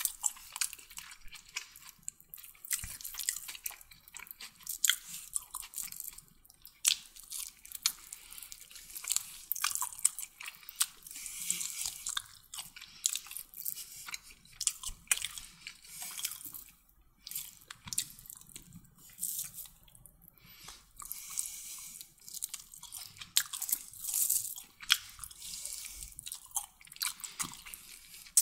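A person chewing and biting mouthfuls of chicken kottu roti close to the microphone: wet mouth clicks and crackles that come irregularly, with short pauses between bites.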